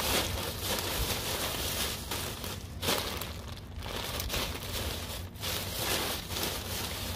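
Black plastic trash bag stuffed with newspaper crinkling and rustling as it is handled, with irregular crackles.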